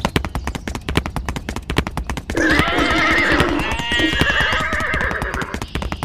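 A fast clatter of sharp clicks, joined about two seconds in by a horse whinnying, a long call that wavers and trills in the middle.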